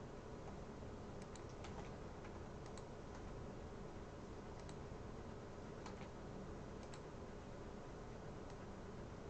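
Faint scattered computer keyboard and mouse clicks, about a dozen irregular taps, over a steady low hum and hiss of the microphone.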